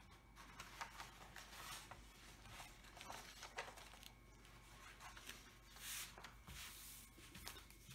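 Faint rustling and crinkling of a diamond painting canvas's protective cover sheet as it is laid back over the adhesive and smoothed flat by hand, a little louder about six seconds in.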